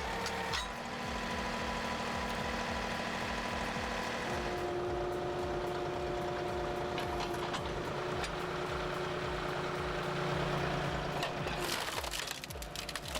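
Firewood processing machinery running with a steady mechanical drone over a low even pulsing. The pitch of the drone shifts a few times, changing with the load.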